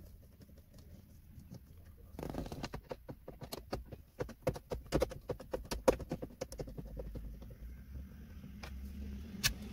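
Screwdriver turning screws out of the plastic centre console trim: a run of quick, irregular clicks and ticks, with a sharper click near the end.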